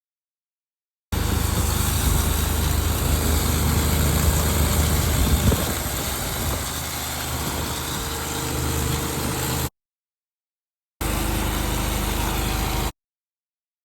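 Pressure washer running: a steady engine hum under a broad spray hiss. It comes in two edited clips with abrupt starts and stops: about eight seconds, a second of silence, then about two seconds more.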